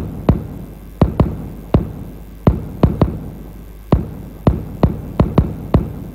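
Programmed kick drum sample from a trap beat playing alone in a syncopated pattern: about fourteen punchy hits at 165 BPM, stopping shortly before the end. A low electrical hum runs underneath.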